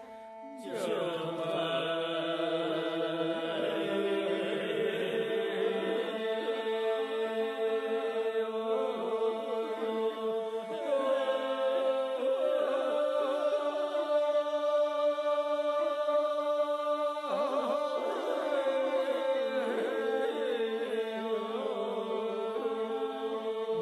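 Chanted singing with music: a voice or voices chanting over steady drone tones that hold throughout, with a shifting melodic line above them.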